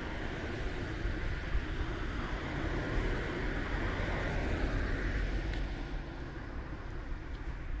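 A passing road vehicle, a steady rushing sound that swells a few seconds in and fades after about six seconds.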